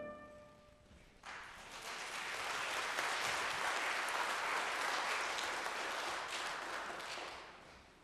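The last trumpet and organ chord dies away, then about a second in the congregation breaks into applause that swells and fades out near the end.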